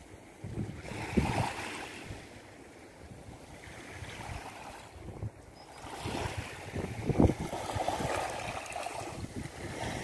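Small sea waves lapping and washing onto a pebbly shore, with wind buffeting the microphone. The wash grows louder from about six seconds in.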